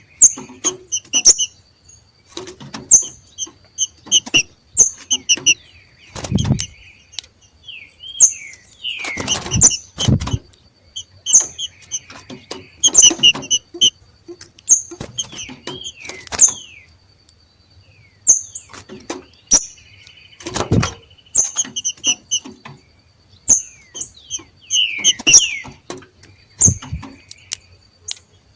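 Green-winged saltators (trinca-ferros) giving their macheado calls: short, sharp, high chirps repeated in bursts every second or two, with a few falling notes. Several loud thumps break in, the loudest about 6 and 21 seconds in.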